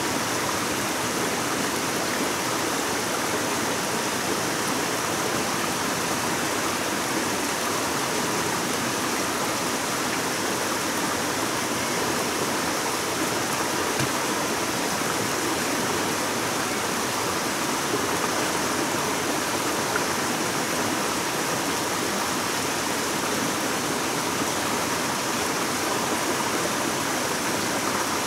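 Running water of a stream, a steady even rush.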